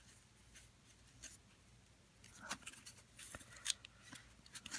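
Faint scratching and rustling as fingers handle and pick at the edge of a corrugated cardboard mailer, a few light scrapes and taps that grow busier about halfway through.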